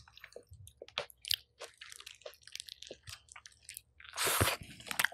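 Close-miked chewing, with wet mouth clicks and smacks, of someone eating a wrap of grilled chicken breast with garlic sauce. A short breathy hiss comes about four seconds in.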